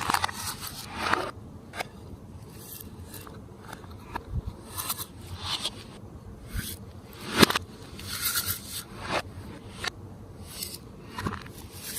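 Glossy slime being worked by hand, making irregular sticky crackles, squishes and scraping sounds, with a few sharp clicks; the sharpest snap comes about seven and a half seconds in.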